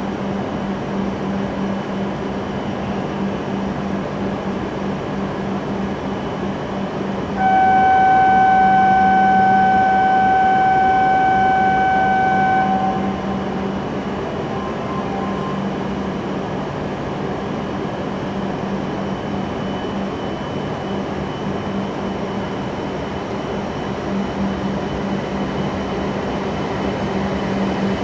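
E7/W7-series Hokuriku Shinkansen train standing at the platform with a steady electrical hum. About seven seconds in, a steady electronic warning tone sounds for about five seconds as the doors close. Near the end the train starts to pull away.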